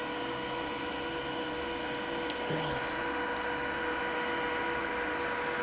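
Repaired welding inverter, its output stage rebuilt with FGH60N60UFD IGBTs, running steadily at idle: a constant whine of several fixed pitches over a steady rushing noise. The sound is that of a unit that has started and runs without problems.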